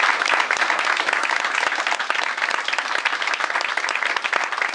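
A room full of people applauding: dense, steady clapping that eases slightly near the end.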